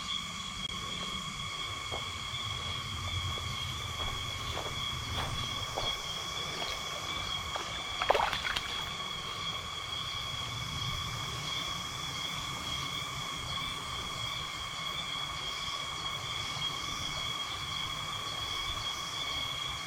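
Steady, unbroken insect chorus with several high droning tones, over a low rush of flowing stream water. A few faint clicks, and one brief louder sound about eight seconds in.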